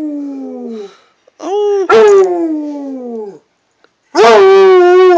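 Redbone coonhound howling: a howl tails off and drops in pitch, then a second long howl starts about a second and a half in and slides downward, and a third begins about four seconds in, held level.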